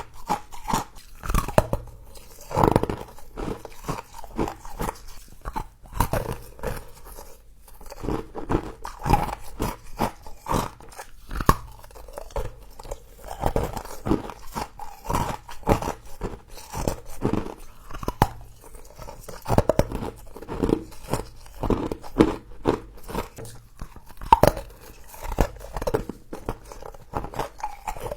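A person biting and chewing frost, giving many irregular, crisp crunches one after another.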